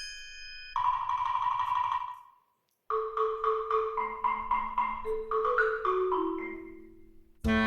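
Background music: a light tune of struck, ringing mallet-percussion notes like a marimba, cutting out briefly about two and a half seconds in before resuming.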